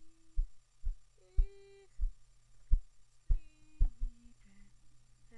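A voice singing a few long, drawn-out notes that step down in pitch near the end, over a string of dull thumps about two a second.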